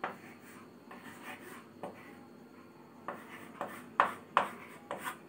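Chalk writing on a chalkboard: a run of short scratching strokes and taps, with a few sharper strokes near the end.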